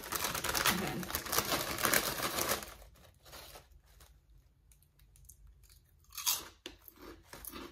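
Foil chip bag crinkling as a hand rummages inside it for about two and a half seconds, then one loud crunchy bite into a Lay's ketchup potato chip about six seconds in, followed by chewing.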